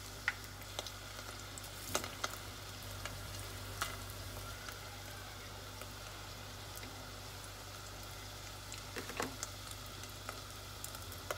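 Rolled tortillas (flautas) frying in shallow oil in a pot, a steady sizzle. A few sharp clicks of metal tongs against the pot, clearest about two seconds in and again near the end.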